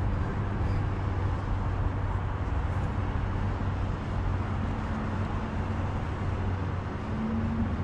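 A vehicle engine running steadily with a constant low hum, over an even wash of outdoor traffic noise.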